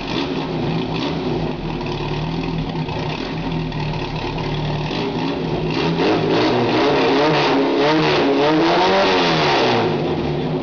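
Engine of a portable fire pump running, steady at first. About halfway through its revs start rising and falling as the throttle is worked by hand, climbing to a peak near the end before dropping back.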